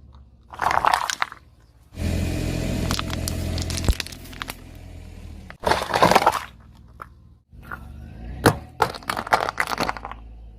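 A car tyre rolling over and crushing brittle objects: a series of crunching, cracking breaks, with a low steady rumble for a couple of seconds in the middle. There is one sharp crack, then several quick cracks near the end.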